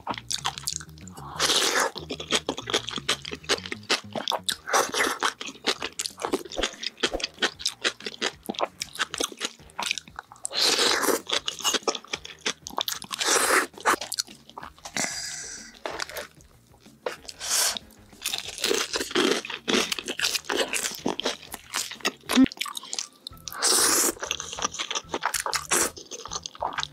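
Close-miked eating of jjajangmyeon noodles and battered fried food: noodles slurped in with wet chewing and many crunchy bites, with sauce poured from a plastic tub about halfway through.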